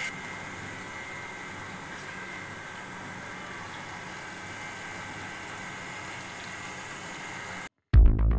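Steady machine hum with a thin high whine from the water-boring rig's machinery running while casing pipe is lowered into the borehole. Near the end it cuts off abruptly, and loud electronic background music starts.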